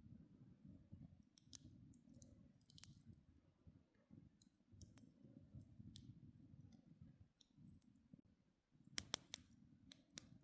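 Campfire burning quietly with a low rumble, and the burning wood crackling in scattered sharp pops, several louder pops close together near the end.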